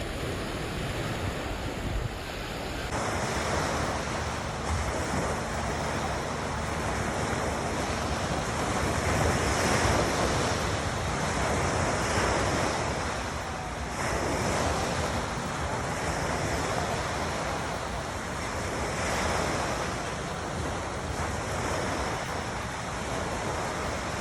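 Calm waves washing onto a shore, the surf swelling and easing every few seconds.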